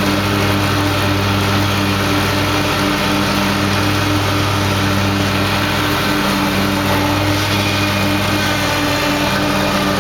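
Lawn mower engine running steadily at a constant speed, a loud, even engine hum.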